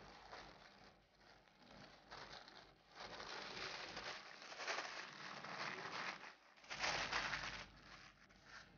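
Butter paper rustling and crinkling as it is rolled and pressed around a filled dough roll, faint at first, then a steady rustle from about three seconds in and a louder crinkle near the end.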